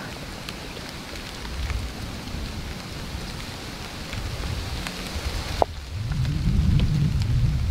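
Rain falling on tree leaves, with scattered drip ticks, and wind gusting across the microphone in low rumbles that ease off after the first second and build again from about six seconds in. A single sharp click sounds about five and a half seconds in.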